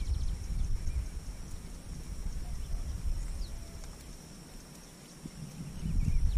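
Wind buffeting the action camera's microphone, a gusty low rumble that dies down about four seconds in and picks up again near the end, with a faint steady high whine.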